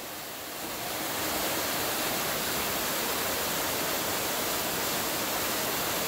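Small waterfall splashing down onto rocks: a steady noise of falling water that grows louder about a second in and then holds even.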